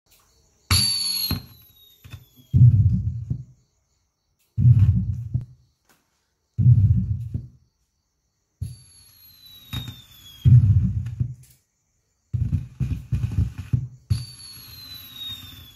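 Recorded fireworks sound effects from an LED firework light's speaker: three high whistles falling in pitch, each followed by low booms, and a run of quick bangs near the end, timed to the light effects.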